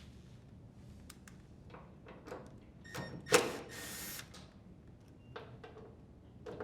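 Light clicks and knocks of screws being taken out of a dryer door's hinge mounting, with a louder burst just under a second long about halfway through, typical of a drill driver spinning a screw out.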